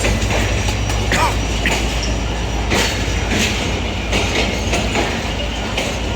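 Passenger train rolling into a station: steady low rumble with irregular clacks of the wheels over rail joints, and a brief rising squeal about a second in.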